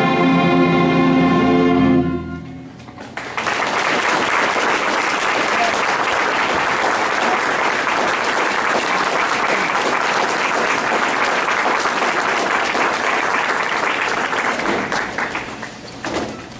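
A youth string orchestra holds its final chord, which cuts off about two seconds in. After a brief hush the audience applauds steadily, dying away near the end.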